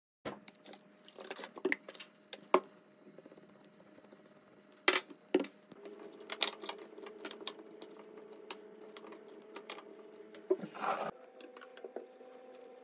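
Kitchen handling sounds as canned sweetcorn is tipped into a bowl of diced beetroot and the salad is mixed by hand: a series of sharp taps and clicks, the loudest about five seconds in, then softer wet squishing and rustling.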